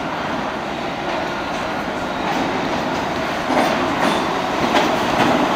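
R46 New York City Subway train pulling into the station past the platform. It gets louder about three and a half seconds in, as the front cars reach the platform, with a few sharp clicks from the wheels.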